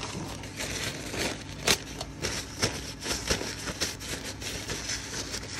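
Paper towels rustling and crinkling in irregular bursts as greasy hands are wiped clean.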